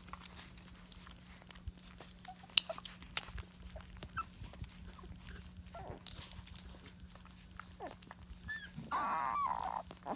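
Three-week-old Rottweiler puppies nursing on their mother: small scattered clicks and shuffling with a few brief squeaks, then near the end one puppy whining for about a second in a wavering pitch.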